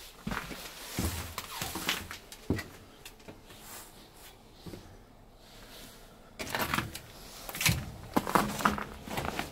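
Footsteps crunching and scraping over debris and rusty metal on a littered floor: scattered steps at first, a quieter stretch in the middle, then denser, louder crunching near the end.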